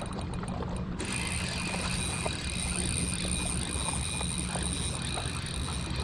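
Spinning reel being cranked in on a lure rod, its gears ticking with many small irregular clicks, over a steady low hum. A faint steady whine comes in about a second in.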